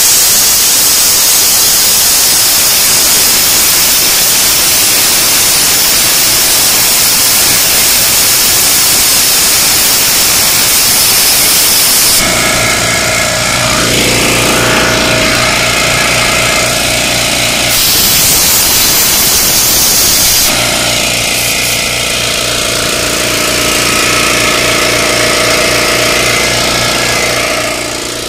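Homemade siphon-feed sandblaster (a bottle hopper on a compressed-air blow gun) blasting sand in a loud, steady hiss. About 12 seconds in, a steady machine hum starts underneath and keeps going, with the hiss surging again briefly.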